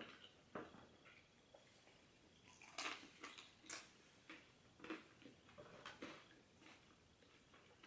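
Close-miked chewing and mouth sounds from eating fast food: irregular soft smacks and clicks, a dozen or so, the loudest about three seconds in.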